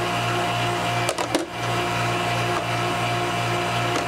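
Steady machine hum from a running motor, with a couple of brief clicks about a second in.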